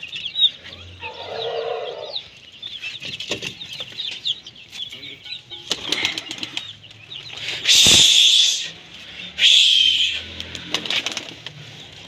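Pigeon wings flapping in two loud flurries, about eight and nine and a half seconds in, over a constant high chirping and peeping of the birds around the pigeon and chicken coops.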